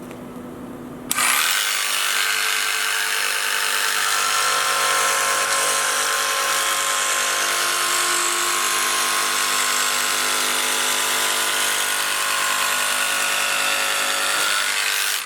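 Jigsaw with a Starrett BU36T 6 TPI ground-tooth blade, pendulum action off, starting about a second in and running steadily as it cuts through a perspex (acrylic) sheet, stopping near the end.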